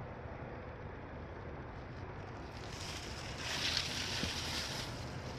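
Leaves of a shrub rustling as a person brushes through the bush by hand, a louder hiss lasting about two seconds starting around the middle, over a steady low outdoor rumble.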